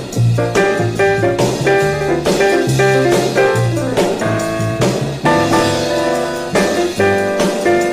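Music only: an up-tempo dance record with a steady drum beat, a bass line and guitar.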